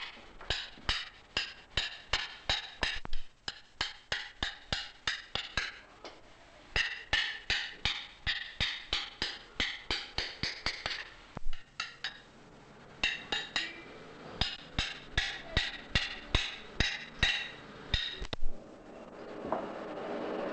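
Hammer blows ringing on a blacksmith's anvil, a steady beat of about three strikes a second in runs with brief pauses, stopping near the end. A steady rushing noise from the blown forge fire then swells up.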